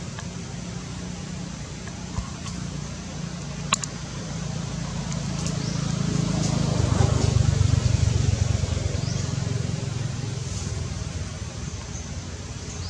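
Low engine rumble that swells to its loudest about seven seconds in and then fades away, with a single sharp click near four seconds and a few faint high bird chirps.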